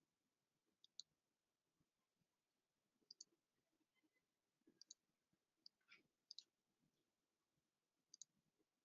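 Faint computer mouse clicks, about six spread out over near silence, several heard as a quick double tick of press and release.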